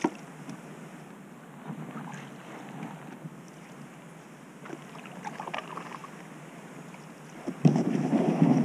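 Canoe paddle strokes in calm lake water: soft splashes and drips every second or so. Near the end a much louder rush of wind noise on the microphone cuts in.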